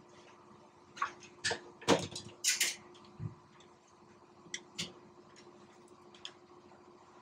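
Metal hand tools clicking and knocking against a Bosch alternator's housing as it is taken apart in a vise: a run of sharp clicks in the first few seconds, the loudest about two seconds in, with a dull thud just after, then a few lighter ticks. A steady low hum runs underneath.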